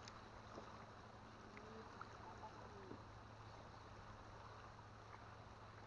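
Near silence: faint steady background with a low hum and a few soft ticks.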